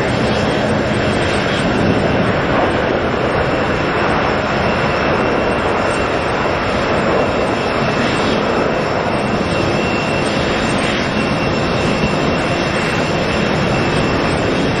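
Airbus A380 jet engines running loud and steady as the airliner rolls along the runway, with a thin high whine held over the dense engine noise.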